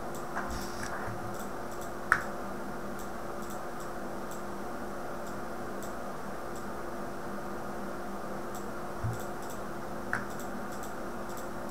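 A few short computer-mouse clicks over a steady low hum, the sharpest about two seconds in, with a soft low thump about nine seconds in.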